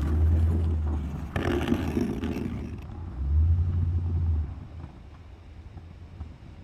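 Toyota Tundra pickup truck's engine running while plowing snow. Its low hum swells twice, with a brief rougher surge about a second and a half in, then eases off and quietens over the last couple of seconds.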